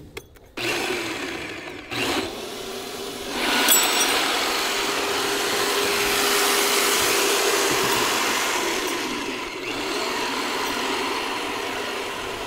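Electric come-along winch motor running, reeling in its line to pull the mini truck onto the tilt trailer. It starts about half a second in, pauses briefly, then runs steadily and louder from about three and a half seconds, with a faint steady whine.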